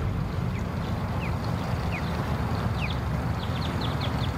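Birds chirping: short, quick, high calls that slide downward, coming in a fast run in the second half, over a steady low rumble.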